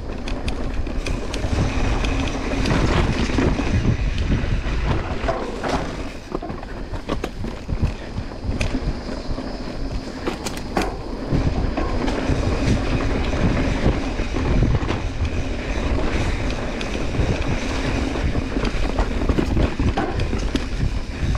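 Santa Cruz Hightower full-suspension mountain bike riding over a bumpy dirt singletrack: a steady rolling rumble of the tyres, with many rattling clicks and knocks from the bike over the rough ground.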